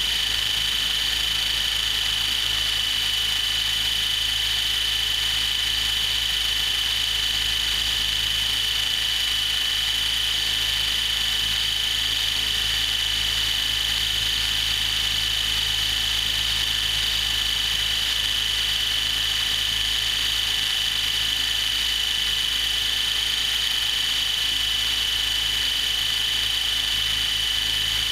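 Align T-Rex 700E electric RC helicopter running steadily on the ground, heard from a camera on its own frame. The rotor turns at a constant speed with a steady high-pitched whine from the electric drive.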